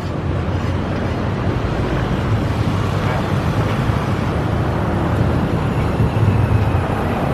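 Street traffic: vehicle engines running and passing close by, a steady low rumble.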